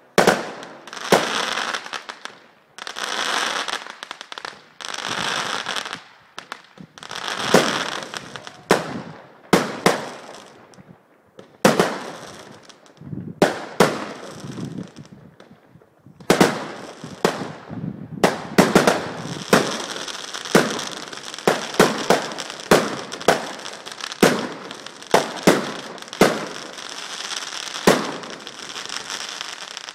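Consumer aerial fireworks going off: a run of sharp bangs with crackling hiss between them. At first the bangs are a second or two apart with long crackles. From about halfway through they come quicker, two or three a second.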